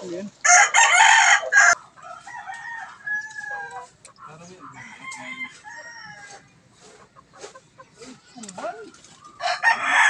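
Roosters crowing: one loud crow about half a second in, and another starting near the end, with quieter calls and clucks in between.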